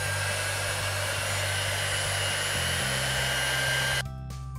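Electric heat gun blowing, a steady rushing air noise with a fan whine, switched off about four seconds in. It is warming the vinyl graphic's edge so it lays down without wrinkles.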